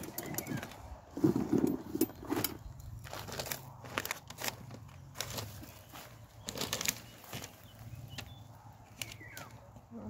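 Freshly picked cherries and paper being handled, giving irregular rustling, crinkling and small sharp clicks.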